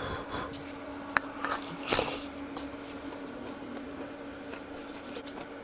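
Person eating noodles and broth from a small bowl with chopsticks: a sharp click a little after a second in, then a short slurp about two seconds in, over a steady low hum.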